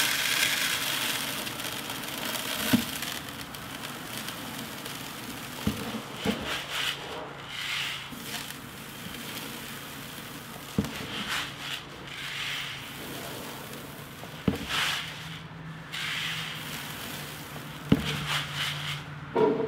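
Granular fertilizer pouring from a plastic bucket into the plastic hopper of a Lesco spreader. The granules make a hissing, rattling patter that swells and eases as the bucket tips, with a few sharp knocks.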